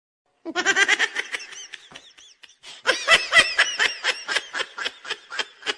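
High-pitched laughter sound effect in two fits: a short giggle about half a second in, then a longer run of quick, evenly spaced ha-ha pulses.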